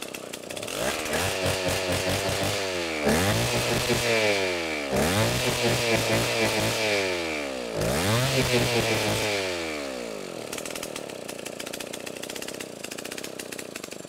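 Two-stroke chainsaw idling, then revved hard in several surges, its engine speed dipping briefly between them, before dropping back to idle about ten seconds in.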